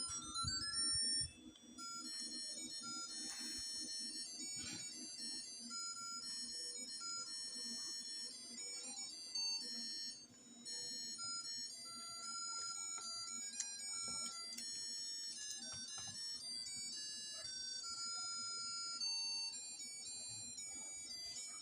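A tinny electronic melody of high, beeping notes, like a ringtone or ice-cream-van tune, playing over a low buzzing hum.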